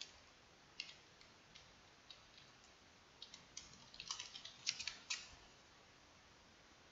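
Faint computer keyboard keystrokes: a few scattered taps, then a quick run of them about four to five seconds in.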